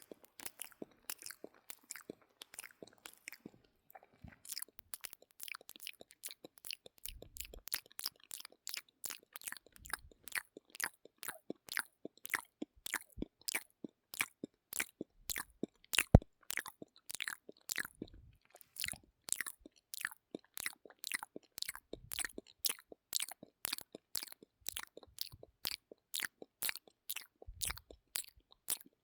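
ASMR mouth sounds close to the microphone: a steady run of lip and tongue clicks, about two to three a second. They are fainter and more scattered for the first few seconds, break off briefly about four seconds in, and include one louder click near the middle.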